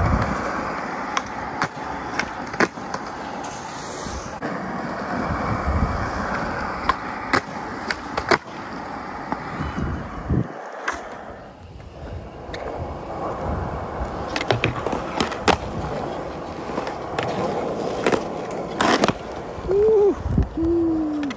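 Skateboard wheels rolling over concrete, with repeated sharp clacks of the board striking the ground. The rolling drops out briefly about halfway.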